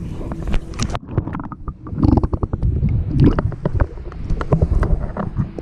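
Kayak paddling on open water: splashes and quick knocks of the paddles over a low rumble of water and wind on the microphone.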